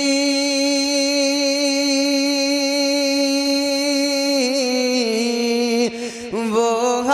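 A man's voice singing a naat in classical style. He holds one long note for about four seconds, steps down a little, then sings quick ornamental turns near the end before the next line.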